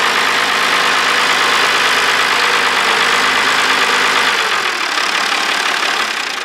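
Turbocharged six-cylinder diesel of an International Farmall 1456 tractor idling steadily, then dying away near the end as it is shut down.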